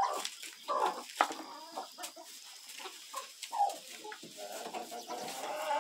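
Chickens clucking, short calls scattered throughout, with a longer drawn-out call near the end.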